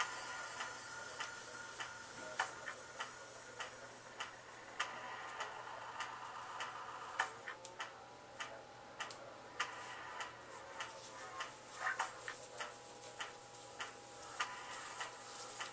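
Electronic glitch-hop music in a sparse passage: sharp clicks on an even beat, about one and a half a second, over faint held tones.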